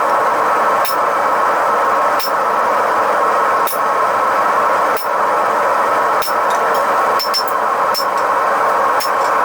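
A forge burner's steady roar, with about nine sharp, ringing hammer blows on hot steel at the anvil. The blows fall roughly one every second and a bit, then come closer together near the end.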